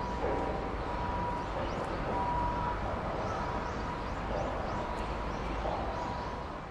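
Steady outdoor background noise with a low rumble, a thin high tone that comes and goes, and a few faint distant calls. It cuts off suddenly at the end.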